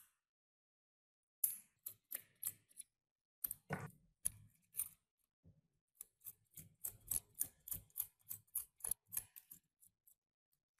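Curved steel pick scraping and prying at the hardened crust of rust and dried earth on an antique meat grinder, a series of short, crisp scrapes and crumbling crackles. They start about a second and a half in and come quicker near the end, about four a second.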